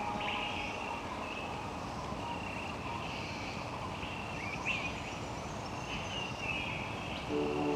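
Rainforest ambience: a steady background hiss with short, high animal calls repeating every second or so.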